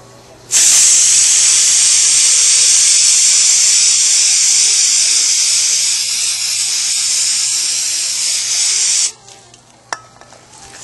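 Aerosol can of K&N air filter oil spraying over a motorcycle's air filter element in one continuous, even hiss that starts about half a second in and cuts off suddenly about nine seconds in. A single sharp click follows about a second later.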